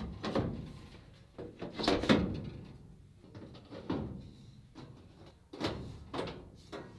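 Sheet-metal furnace cover panels being handled and fitted back onto the furnace cabinet: a string of separate metallic knocks and clanks, around eight of them, each fading out quickly.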